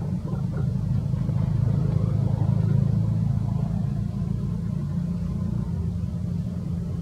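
A steady low rumble, swelling slightly about two to three seconds in.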